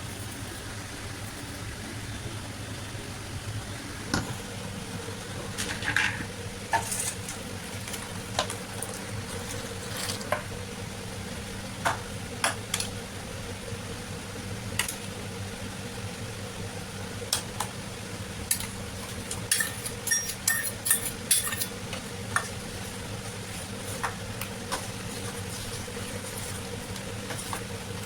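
A spoon stirring and clinking against a kitchen vessel, with sharp clinks at irregular intervals that come thickest about two-thirds of the way through, over a steady low hum.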